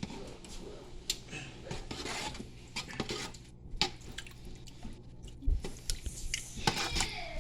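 Pots and metal utensils clinking and knocking while a pot of chili is tended on the stove: scattered short knocks at irregular times, with a louder knock about five and a half seconds in.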